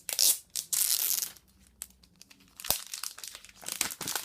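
Plastic wrapping on a new iPad crinkling and tearing as it is pulled off by hand: two loud bursts in the first second and a half, then smaller crackles and a single sharp click.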